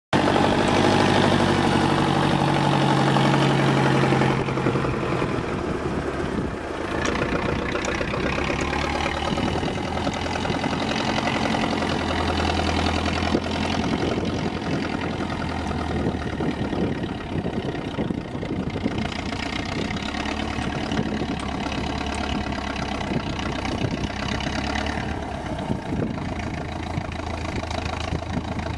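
Truck engines running as off-road trial trucks crawl slowly over a muddy course. The engine speed rises and falls. The sound is loudest in the first four seconds, when a truck is close by.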